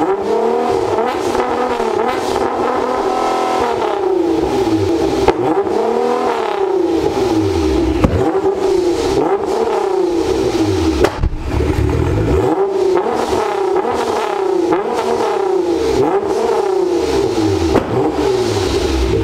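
Nissan GT-R's twin-turbo V6 revved again and again through a new titanium exhaust, the pitch rising and falling with each blip. A few sharp pops from the exhaust come between the revs.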